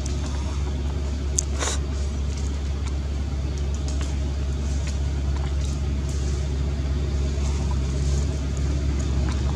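A steady low rumble, with a single sharp click about one and a half seconds in.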